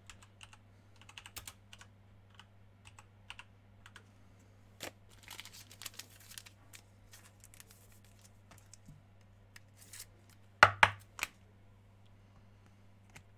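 Scattered light clicks and taps, denser in the middle, with two louder knocks about eleven seconds in, over a steady low electrical hum.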